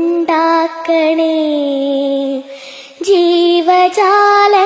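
A slow Malayalam prayer song is sung with long held notes, with a short break about halfway through before the next line begins.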